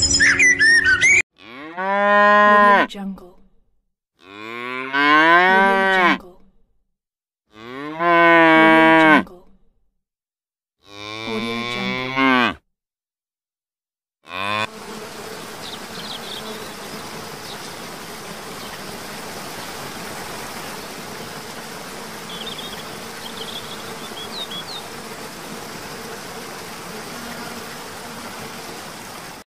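Cattle mooing: four long, drawn-out moos about three seconds apart, each rising and then falling in pitch. After them comes a steady rushing noise with a few faint high chirps.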